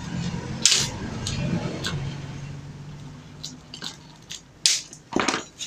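Pliers gripping and twisting steel fence wire in the end of a PVC pipe: a string of sharp metallic clicks and snaps, a strong one under a second in and two more near the end. A low steady hum underlies the first couple of seconds.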